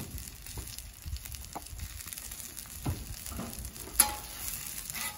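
Cornmeal-crusted grit cakes and dollops of fat sizzling steadily on a hot flat-top griddle. A metal spatula knocks and scrapes on the steel griddle top a few times, loudest about four seconds in.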